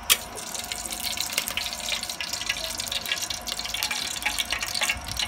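Cooking oil being poured from one aluminium pot into another, a steady splashing pour with fine crackle. It opens with a sharp metal clink.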